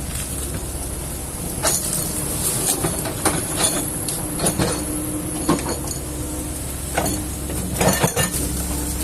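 Kobelco hydraulic excavator's diesel engine running at a steady hum while it works, with a series of irregular knocks and clanks, the loudest cluster near the end.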